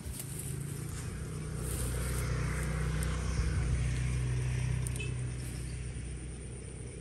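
A motor vehicle's engine drone passing by, a steady low hum that swells over the first few seconds and then slowly fades.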